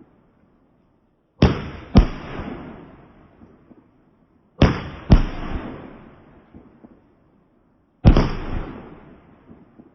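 Loud fireworks going off three times: two bangs about half a second apart, another pair a few seconds later, then a single bang near the end, each trailing off in a long rumbling echo.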